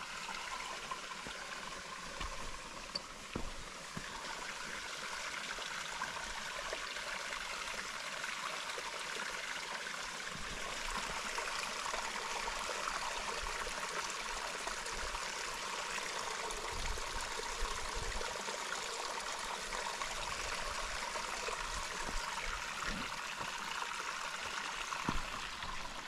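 Running water of a small stream, a steady rushing that grows a little louder a few seconds in.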